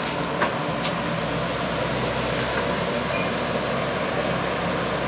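Caterpillar 312B hydraulic excavator's diesel engine running steadily as the machine swings and works its boom and bucket. There are a couple of light knocks in the first second.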